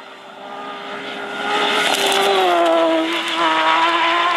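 Off-road rally car's engine at full race speed, approaching and growing loud, then dropping in pitch as it passes about two seconds in, with a rush of noise at the pass. The engine then pulls up in pitch again as it accelerates away.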